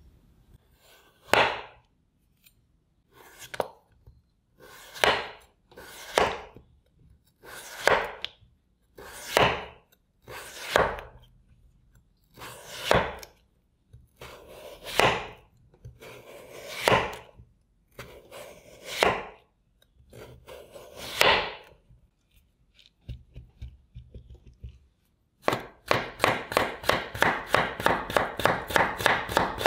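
Chef's knife slicing a peeled raw potato on a bamboo cutting board: about a dozen slow, separate cuts, each ending in a knock of the blade on the board. About 25 seconds in, quick, even chopping starts at about five strokes a second as the slabs are cut into thin matchsticks.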